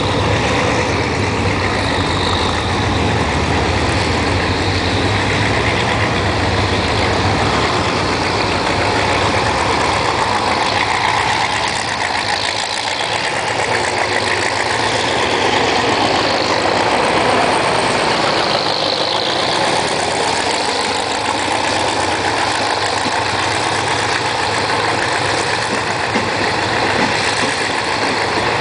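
GEA-class diesel-electric locomotive pulling out under power, its engine giving a heavy low rumble as it approaches and passes. After about twelve seconds the low rumble falls away, and the passenger coaches keep up a steady rolling noise as they go by.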